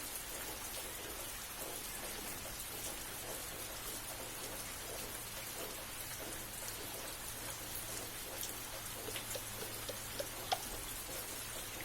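Steady rain falling, with a faint low hum underneath. A few sharper drips land late on, one standing out about ten and a half seconds in.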